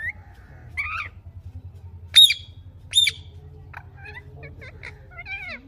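Green parrot calling: a short rising whistle at the start and another call about a second in, then two loud, sharp screeches a little under a second apart, followed by a run of quick, softer chirps.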